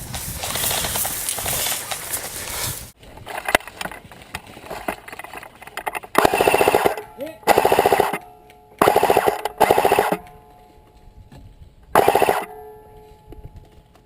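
Airsoft rifles firing five short full-auto bursts, each under a second, spread over about six seconds. Before them comes a few seconds of loud, rough noise.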